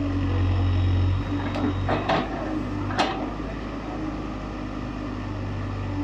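Case 851EX backhoe loader's diesel engine running steadily, its drone easing a little about a second in. Three sharp metallic knocks come from the moving boom and bucket, the loudest about three seconds in.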